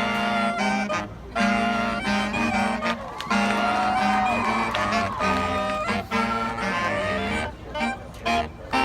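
Marching band playing, brass and woodwinds holding full chords, then breaking into short punched hits separated by gaps near the end.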